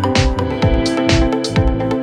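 Background electronic music with a steady beat, about two kick-drum strokes a second under held chords.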